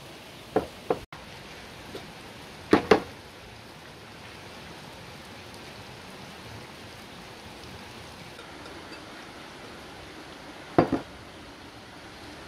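Bowls being handled: a glass bowl and an enamel basin knocking on each other or on the wooden table, in quick double knocks about a second in, near three seconds, and near the end, over a steady low hiss.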